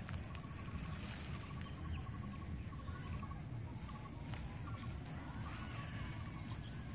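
Outdoor field ambience: wind rumbling on the microphone, under a steady high insect trill and short runs of a rapid pulsing animal call repeating every second or so.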